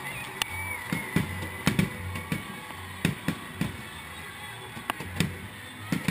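Fireworks shells bursting overhead in an uneven series of a dozen or so sharp bangs and crackles, with music playing underneath.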